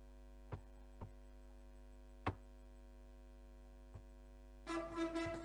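Steady electrical mains hum with a few short sharp clicks, then music starts playing near the end: the Indonesian national song being played for the class to sing along.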